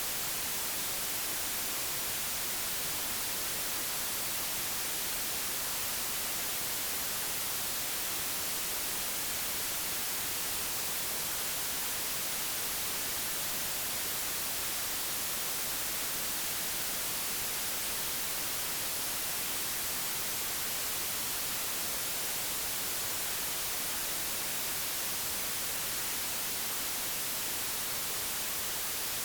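Computer-generated white noise: a steady, even hiss across all pitches, brightest in the highs, unchanging throughout.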